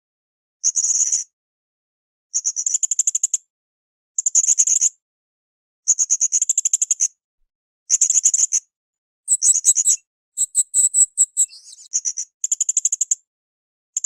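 Blue-crowned hanging parrot (srindit) calling: a series of short, very rapid high-pitched trills, repeated about every one and a half to two seconds. Around ten seconds in, the calls change to a few more varied, whistled notes before the trills resume.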